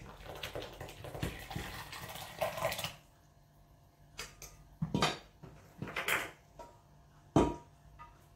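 Wet muffin batter pouring from a stainless steel bowl into another, then a spatula scraping and knocking against the tilted steel bowl several times, the loudest knock near the end.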